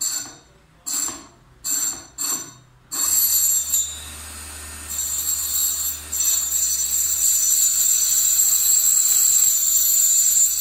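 Small aluminium-bodied servo motor on a speed controller whirring with a high-pitched whine, in four short bursts, then running continuously with a low hum under the whine, getting louder in steps a few seconds in.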